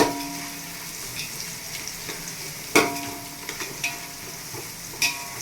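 Onions frying in ghee with a steady sizzle, stirred in the pan; the utensil knocks against the pan at the start, about three seconds in and near the end, and each knock leaves a short ring.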